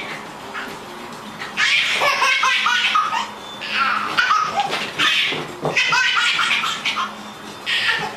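A baby laughing hysterically in several high-pitched bursts of squealing laughter, with short quieter gaps between them.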